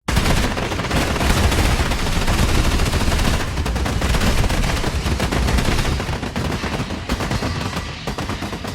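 Dense battlefield gunfire: rapid automatic weapon fire and rifle shots overlapping without a break, with a heavy low rumble beneath. It begins abruptly out of silence.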